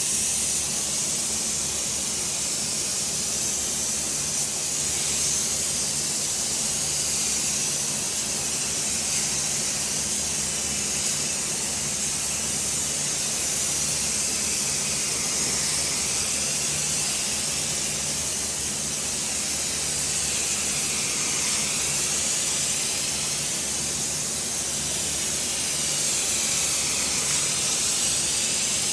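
Paint spray gun driven by compressed air, spraying in a continuous hiss whose tone slowly rises and falls, with a faint steady low hum underneath.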